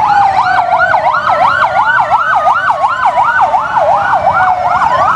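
Toy fire truck's electronic siren sounding loudly: a fast warbling yelp, about three to four swings a second, over a slower wail that falls and then rises again.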